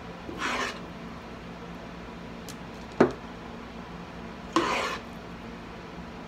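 A spoon scraping sticky no-bake cookie mixture out of a pot: two short scrapes, about half a second and four and a half seconds in, with one sharp knock about three seconds in, over a faint steady hum.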